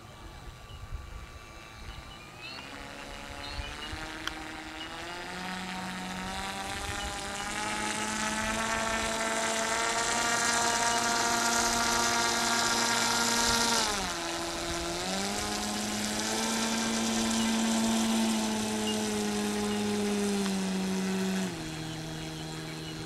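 RC Anderson Kingfisher seaplane model's motor and propeller whining, rising in pitch over the first several seconds as the throttle opens for a fast taxi on the water. The pitch dips briefly about halfway through, climbs again, then drops near the end as the throttle is eased back.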